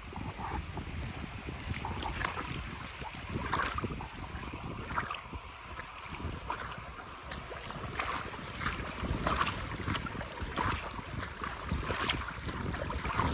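Boots crunching along a trail at a steady walking pace, about one and a half steps a second, with wind rumbling on the microphone.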